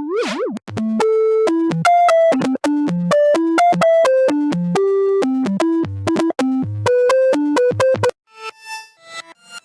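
Xfer Serum software-synthesizer bass preset playing a melodic phrase of short stepped notes, after a brief sliding-pitch sound at the very start. A little past 8 seconds it switches to another, quieter preset playing short scattered notes.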